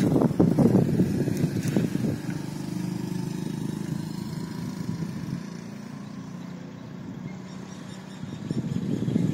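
A motor vehicle engine running, loudest in the first two seconds, settling into a lower steady hum, then rising again near the end.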